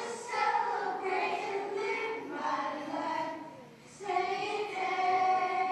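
Children singing a song without accompaniment, holding notes that step from pitch to pitch.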